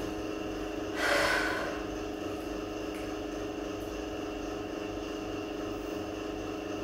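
A person breathes out in a short, audible sigh about a second in, over a steady background hum.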